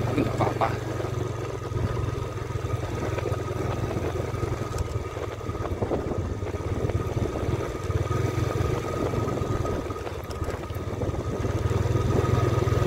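Motorcycle engine running steadily at low speed, a low hum with a thin steady whine above it.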